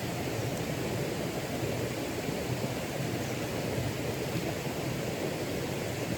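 Steady rushing of flowing river water, an even noise with no clear strokes.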